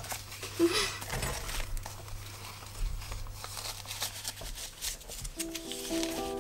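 Torn, fragile 1930s newspaper rustling and crackling as the pieces are handled and picked apart on a wooden table, with small clicks and scrapes of tools. Music comes in near the end.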